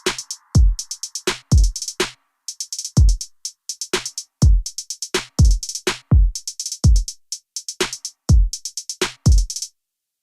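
Electronic background music: a drum-machine beat of deep kicks and busy hi-hats, with a falling swoosh in the first second, stopping just before the end.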